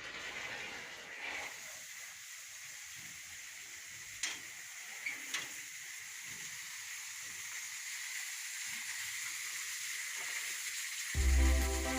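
Steady rushing hiss of water from the outlet of a Tata 3 kW solar pump running at high pressure, with a few faint clicks. Music starts about a second before the end.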